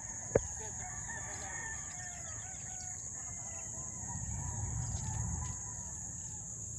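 Distant roosters crowing over a steady high-pitched hiss. A single sharp click comes about half a second in, and a low rumble swells between about four and five and a half seconds.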